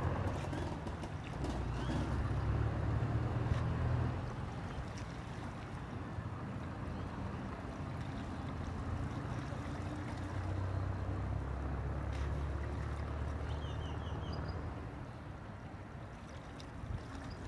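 Low, steady rumble of a large oil tanker under way on the river, swelling and easing a little over the few seconds.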